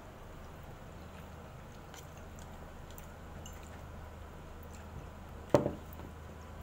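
Quiet eating sounds over a low steady hum, with one short, sharp knock about five and a half seconds in.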